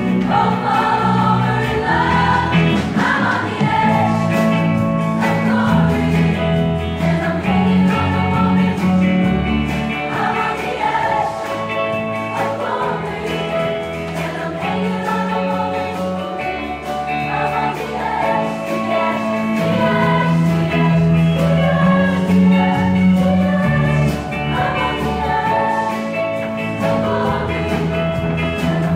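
A show choir of many voices singing together with instrumental accompaniment, over a bass line that holds each note for a second or two.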